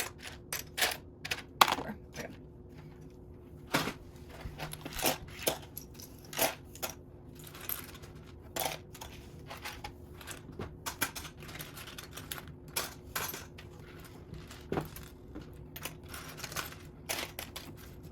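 Small plastic Lego pieces clicking and clattering irregularly as they are handled and picked out, with a faint steady hum underneath.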